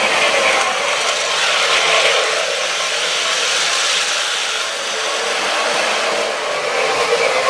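O gauge electric model trains running on three-rail tubular track: a steady rolling rattle of wheels on the rails with motor whir, louder for a few seconds in the middle as a train passes close.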